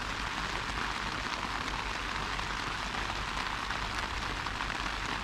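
Rain falling steadily on the fabric of a Zephyros 1 one-person tent, heard from inside the tent.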